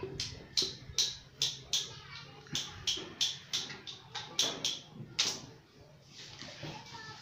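Screw cap being twisted onto a plastic bottle, giving a run of about fifteen sharp clicks, roughly three a second, that stop about five seconds in.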